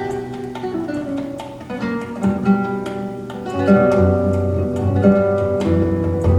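Plucked acoustic guitar music played back over a hi-fi loudspeaker system, with low bass notes coming in more strongly about halfway through.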